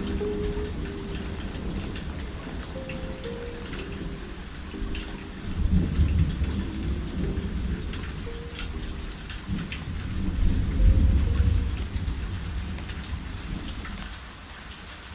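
Steady rain with scattered drops pattering, and thunder rumbling low, swelling twice: about six seconds in and again around eleven seconds. A soft, low melody of short notes plays faintly underneath.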